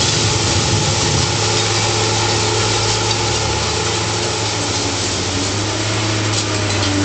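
Heavy machinery running steadily at a scrap shredder's container-loading conveyor: a constant low engine-like hum under a dense rushing noise, without a break.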